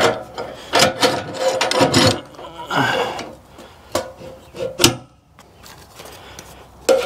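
Wood being scraped and knocked as a log is handled on a portable sawmill with its engine off. Several rough rasping strokes come over the first five seconds, then a sharp knock, then quieter handling sounds with one last click at the end.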